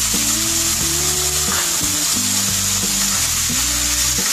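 Diced raw chicken sizzling in oil with onion-tomato masala in a nonstick pan, stirred with a wooden spatula. Background music of held notes plays over it.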